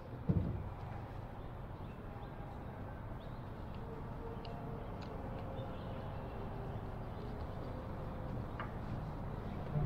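Small hardware being handled: a few faint clicks of a screw, washer and metal hinge being fitted by hand to a plywood pedal, over a low steady hum, with one soft knock near the start.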